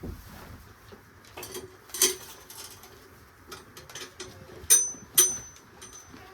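Hard objects being handled: a few separate sharp knocks and clinks, the two close together near the end each leaving a brief high metallic ring.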